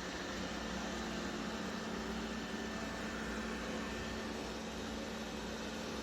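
Roborock Qrevo Pro robot vacuum running, a steady whir of its suction fan with a constant low hum and a faint high whine.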